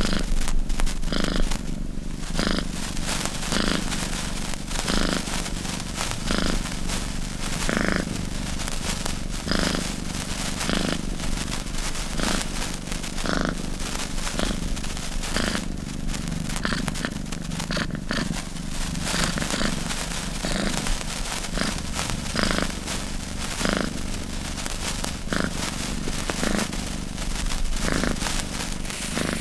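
Domestic cat purring steadily, swelling and easing about every one and a half seconds with each breath, over the faint crackling fizz of a burning fuse.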